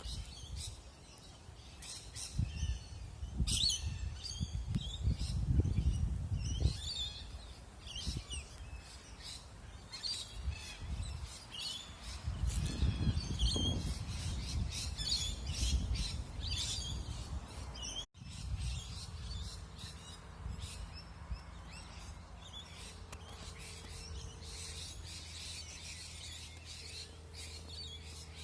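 Birds chirping and calling, many short high calls overlapping throughout, over a low rumbling noise that comes and goes. About two-thirds through the sound cuts off abruptly, after which a steady low hum, with a faint tone that comes and goes, runs under the birdsong.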